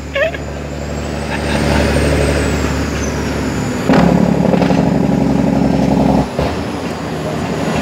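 International 9900i truck's diesel engine heard from inside the cab while driving: a steady drone, then a sudden louder, harsher note about four seconds in that cuts off sharply about two seconds later.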